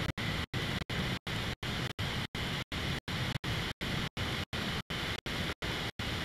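Steady hiss of room noise with no speech, chopped by brief regular dropouts about three times a second.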